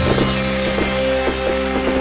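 Background music: a held chord with a light, regular beat about twice a second.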